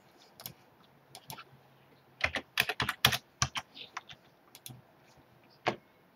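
Computer keyboard keys tapped irregularly: a quick run of keystrokes about two to three and a half seconds in, with single clicks before and after.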